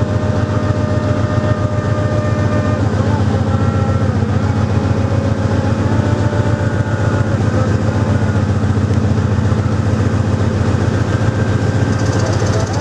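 Hitachi-built diesel locomotive engine idling steadily with a low, even rumble. A hiss comes in near the end.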